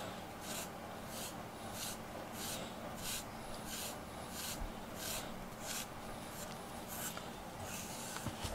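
A cat nosing and mouthing a rubber grooming brush: soft, scratchy rasps in a regular rhythm, about three every two seconds, stopping near the end.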